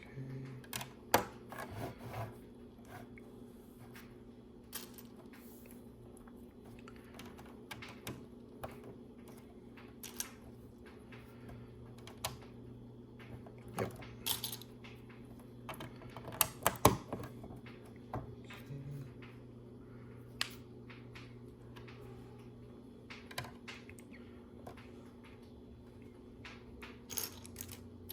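Small plastic LEGO pieces clicking and tapping as they are picked up and pressed onto the board, in irregular clicks with a few louder snaps about a second in and around the middle. A steady low hum runs underneath.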